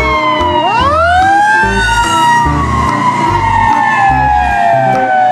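Fire-engine siren wailing: falling, then sweeping up sharply about a second in and slowly falling again, over background music with a steady beat.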